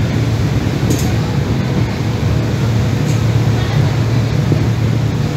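Steady low engine drone on a ferry's enclosed car deck, running evenly without rising or falling.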